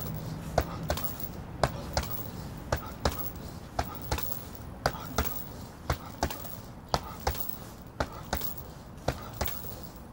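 Boxing-gloved punches thudding into a hanging heavy punching bag, in quick pairs and singles at about two a second.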